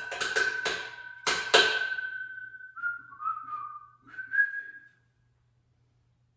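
A person whistling a few notes: one long held note, then three or four shorter notes stepping down and back up. Several sharp knocks fall in the first second and a half.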